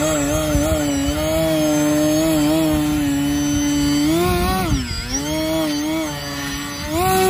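Electric RC plane's motor and propeller whining steadily. The pitch wobbles slightly, dips and comes back up about four and a half to five seconds in, then rises again near the end.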